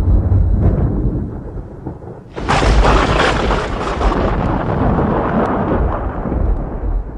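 Thunder: a low rumble fades, then about two and a half seconds in a lightning strike's sudden sharp crack breaks out and rolls on into rumbling that slowly dies away.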